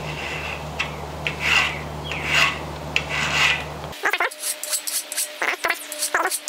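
Hand file rasping across a metal bicycle brake lever held in a bench vise, in separate push strokes. About four seconds in, the strokes turn quicker and shorter. It is taking material off the lever where its return spring rubs and makes the lever action jump.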